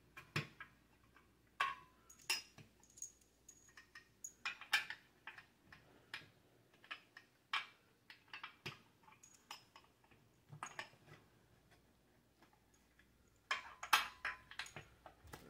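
Scattered light metallic clicks and taps of steel bench-frame parts and bolts knocking together while a bracket is lined up on a tube and the bolts are worked through the holes, with a quicker run of clicks near the end.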